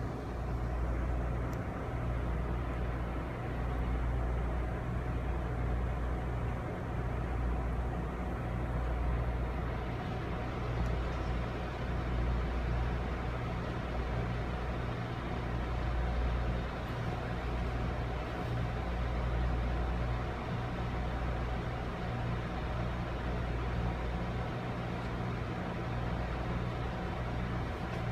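Steady low rumble of a moving passenger train heard from inside an Amfleet coach, the wheels and car body droning with a slow rise and fall.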